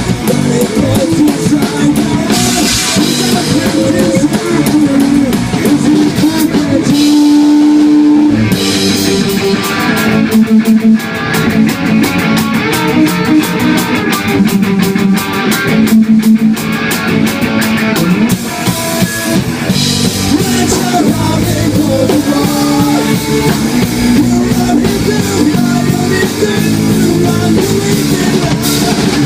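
Rock band of electric guitar, bass and drum kit playing a fast melodic-punk cover. About seven seconds in the drums and bass drop out briefly under one held note before the full band comes back in.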